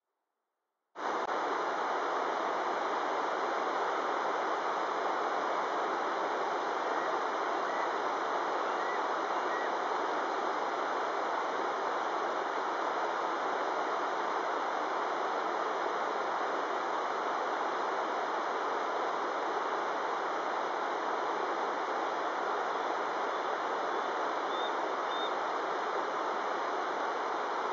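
Steady rush of fast-flowing river water over rocks, starting abruptly about a second in.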